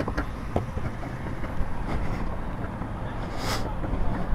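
Rumble of wind on the microphone and tyres on pavement from an electric bike pulling away and picking up speed. A short hiss comes about three and a half seconds in.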